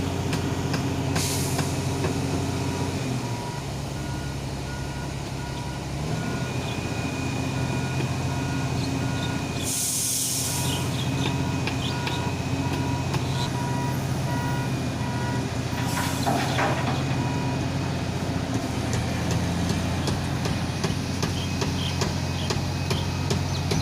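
Heavy diesel machinery at work: a Komatsu excavator's engine running under changing load, its note dropping about three seconds in and picking up again a few seconds later. A pulsed beeping alarm sounds through much of it, and three short blasts of air hiss come at intervals.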